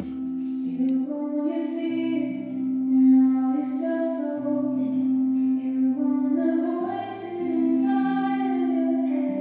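A slow piece of music with a singing voice over a sustained low accompaniment note.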